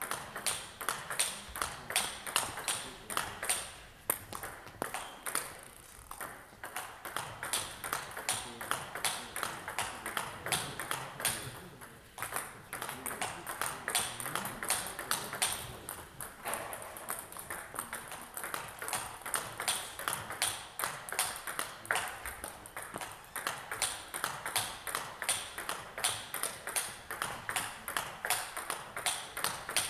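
Table tennis balls clicking off rackets and the table in a fast, continuous rally, several hits a second, with a brief break about twelve seconds in.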